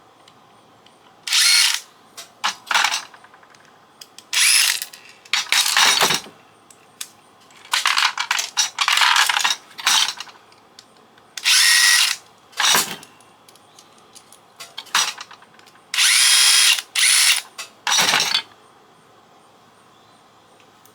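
A power tool running in about ten short bursts with pauses between them, the longest lasting a second or two, stopping about 18 seconds in.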